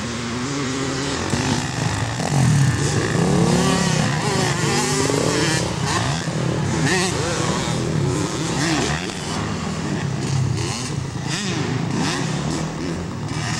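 Several motocross bikes racing at once, their engines revving up and down in overlapping waves as riders throttle on and off through turns and jumps.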